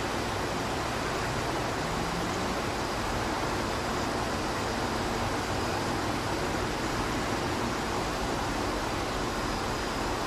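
Steady, even hiss with a low hum underneath, unchanging throughout; no calls or distinct sounds stand out.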